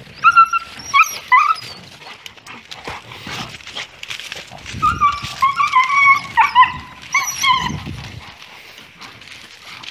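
A dog whining and yipping at a high pitch in two bouts: a few short cries near the start, then a quicker string of them from about five to eight seconds in.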